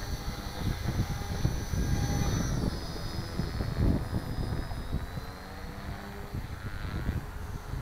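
Radio-controlled helicopter flying at a distance: a thin high whine from its motor and rotors that shifts in pitch as it manoeuvres. Gusts of wind rumble on the microphone throughout.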